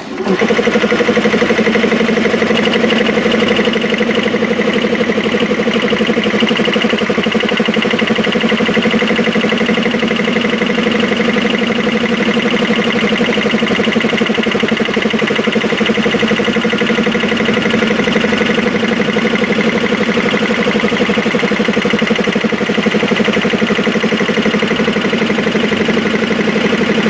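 Air compressors belt-driven by a single electric motor, running steadily with a fast, even pulsing; the sound starts abruptly and does not change.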